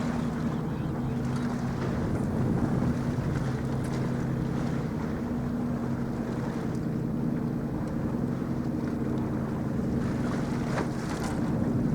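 A ship's diesel engine drones steadily, with a low, even hum and its overtones, over rushing wind and water noise. A short rustle comes near the end.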